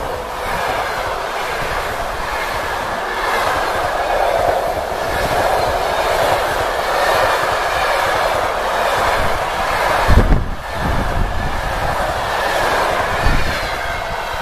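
Passenger train coaches running past close by at speed: a steady loud rush and rumble of wheels on the rails. A heavy low thump stands out about ten seconds in, and a short sharp click near the end.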